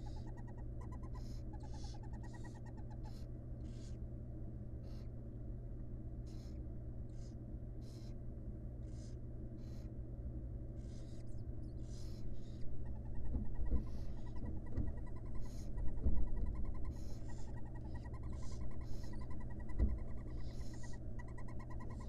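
Barn owl owlets giving short, repeated hissing begging calls over a steady low electrical hum. A few louder bumps and knocks come in the middle of the clip.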